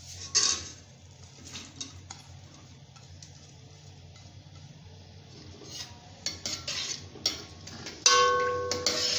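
A steel ladle clinks and scrapes against a metal pan while sliced onions are stirred in oil. There is a sharp clink about half a second in and scattered taps after it. From about six seconds the stirring turns into a busy run of scraping and knocking, and near the end a loud strike leaves the pan ringing.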